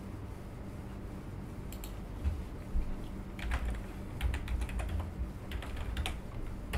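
Typing on a computer keyboard: a short run of irregular keystrokes starting a couple of seconds in, over a low steady hum.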